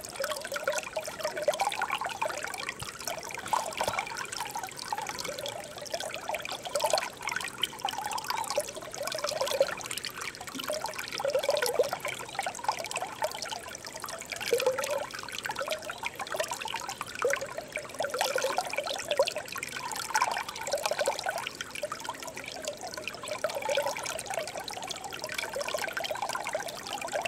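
Shallow stream trickling and babbling over stones, a steady flow with irregular small gurgles and splashes.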